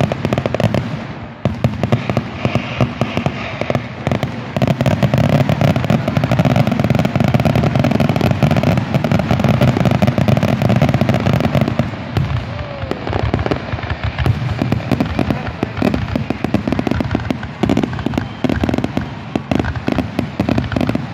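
Fireworks display: aerial shells bursting in a rapid, continuous barrage of bangs and crackling, densest from about four to twelve seconds in and thinning a little after.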